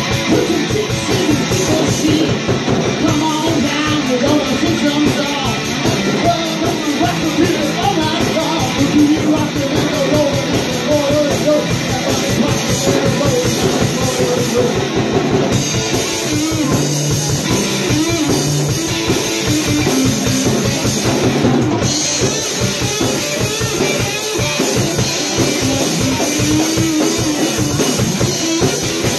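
Live rock band: a S.U.B. AX4 electric guitar played through a VOX AD30VT amp over a Ludwig drum kit keeping a steady beat.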